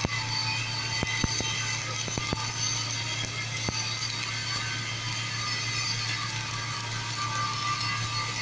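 Flux-core wire welder arc crackling steadily like frying, with scattered sharper pops over a steady low hum.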